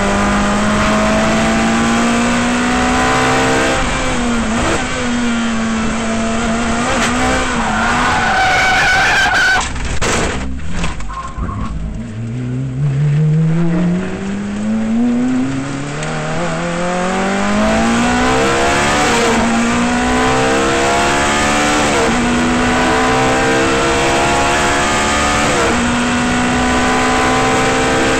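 Ferrari F430 GT's V8 racing engine at high revs. Around ten seconds in the car goes off the track: tyres skid, a few knocks, and the engine almost drops out. It then pulls away from low revs and accelerates hard up through the gears with several upshifts.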